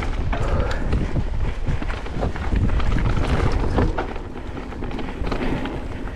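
Wind buffeting the microphone over a mountain bike's tyres and frame rattling and knocking across a dirt trail at speed, easing off about four seconds in.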